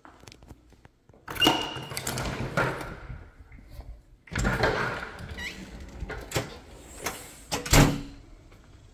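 A back door and its glass storm door being unlatched and pushed open: clicks, knocks and rattling with a short squeak, then a loud thunk near the end.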